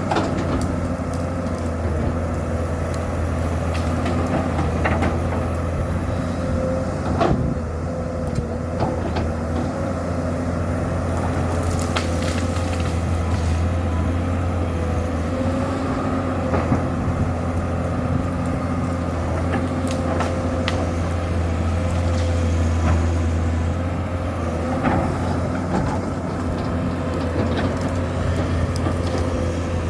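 Komatsu PC200-7 excavator's six-cylinder diesel engine running steadily under working load, with scattered sharp knocks and cracks.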